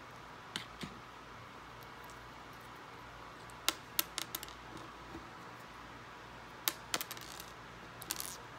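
Loose Lego plastic pieces clicking and clattering against each other and the tabletop as a hand picks through them. The sharp clicks come in short clusters: a pair near the start, then bursts in the middle and near the end.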